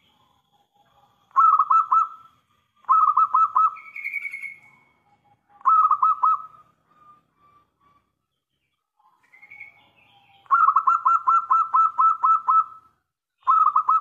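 Zebra dove (perkutut) cooing: short runs of about four rapid, even staccato notes, given three times, then a longer run of about a dozen notes near the end, starting again just before it stops.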